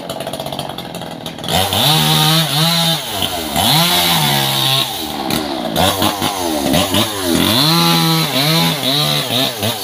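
Two-stroke chainsaw running at low speed, then from about a second and a half in repeatedly throttled up to full speed and dropped back, five or six times, as it cuts through a small trunk.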